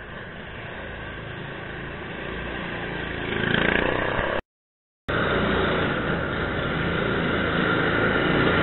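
Go-kart engines running on the track, building in loudness as karts come closer. The sound drops out completely for under a second about four and a half seconds in, then returns louder as a kart approaches.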